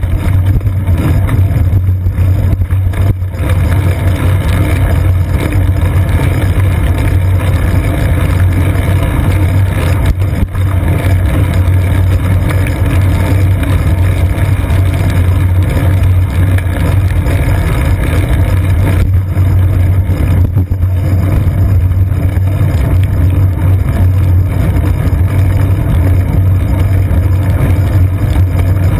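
Steady wind and road rumble on a seat-post-mounted GoPro Hero 2 as the bicycle rides over wet pavement: a loud, constant low drone with an even noise above it.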